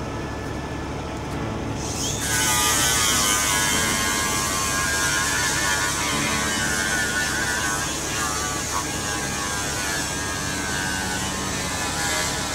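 Mobile crane running: a steady low engine rumble, with a whine from the hydraulics that comes in about two seconds in and wavers a little in pitch.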